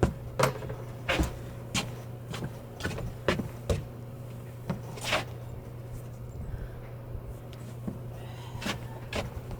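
Irregular knocks and clicks of tools and a board being handled, with one longer scraping hiss about five seconds in, over a steady low hum.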